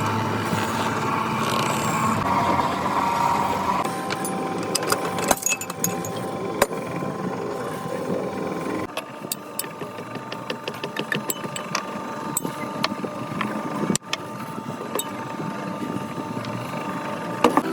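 Old oil-mill machinery for pressing mustard oil running: a steady mechanical hum with a couple of held tones and many sharp clicks and knocks, changing abruptly three times as the shots change.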